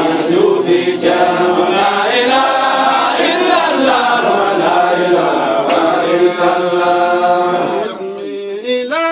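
Group of men's voices chanting a devotional song together. About eight seconds in the group thins out and one man's voice carries on, clearer and on its own.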